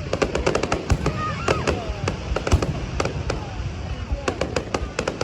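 Fireworks going off in a dense, irregular string of sharp bangs and crackles, many a second, over a continuous low rumble.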